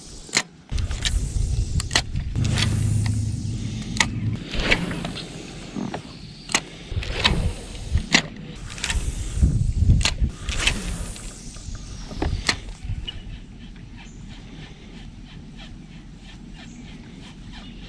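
A fishing rod and reel handled in a kayak: a run of irregular sharp knocks and clicks over a low rumble, thinning about two-thirds of the way through to light, fairly even ticking.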